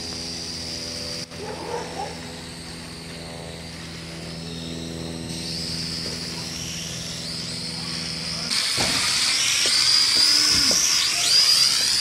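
Small camera drone's motors and propellers whining, picked up by the drone's own microphone. The whine holds a steady pitch at first, then gets louder about eight seconds in and sweeps up and down in pitch.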